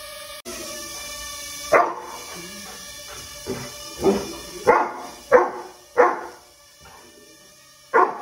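Golden retriever barking repeatedly at a hovering toy drone: about seven sharp barks, the first a little under two seconds in, then a pause and one more near the end.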